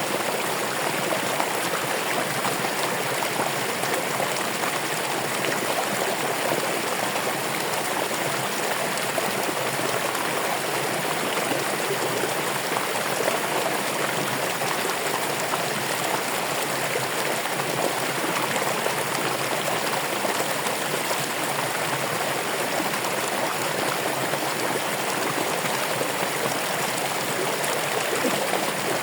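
Running water in a stream, a steady, even rushing and trickling.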